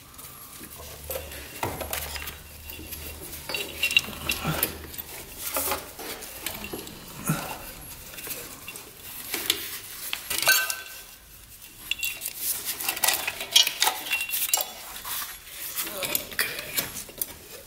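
Hand tools and metal engine parts clinking and clanking irregularly as the cylinder head is worked off a Polaris Sportsman 500 ATV engine.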